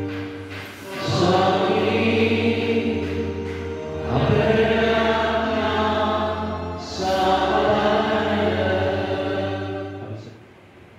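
Hymn sung in three long phrases over held accompanying chords, stopping about ten seconds in.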